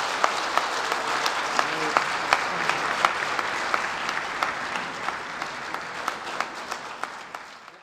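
Audience applauding, many hands clapping at once, the applause slowly thinning and then cut off abruptly near the end.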